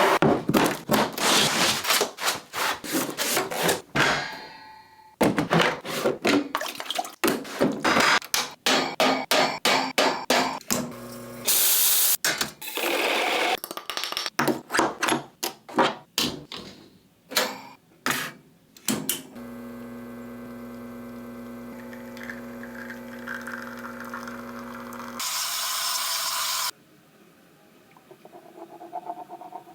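Packaging and parts being handled: a long run of knocks, clatter and rustling, with a short hiss partway through. Then a steady machine hum for about five seconds, cut off by a loud hiss lasting about a second and a half.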